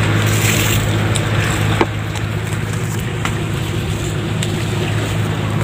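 Boat engine running with a steady low drone over a constant rushing noise, with a single sharp knock about two seconds in.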